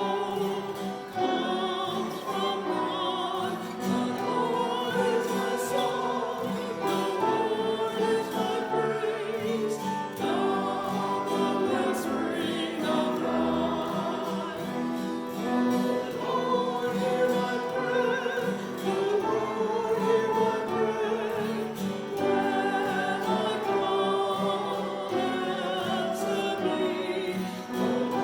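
Sacred choral music: voices singing slow, held notes with vibrato.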